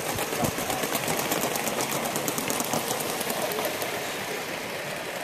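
A long Gauge 1 model goods train of metal-wheeled wagons running past on the garden track, a rapid, even clicking of wheels on the rails that grows fainter as the train draws away.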